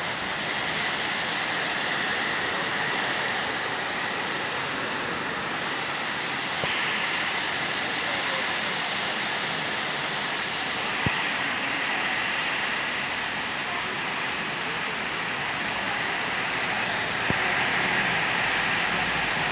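Heavy rain pouring down in a steady hiss, with three short sharp knocks: about a third of the way in, just past the middle, and near the end.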